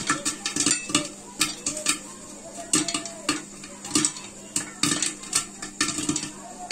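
Popcorn kernels popping inside a closed metal pressure cooker on a gas flame: sharp, irregular pops several times a second, the kernels striking the pot and lid, over a faint steady hum. The popping still going means the corn is still frying and not yet done.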